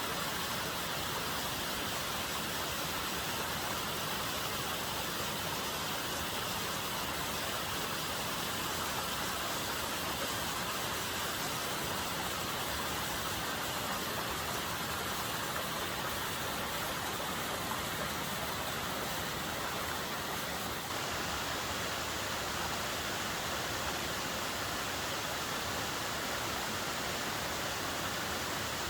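Steady rushing of a rain-swollen mountain stream and small waterfall, an even hiss with no breaks, running high after heavy rain.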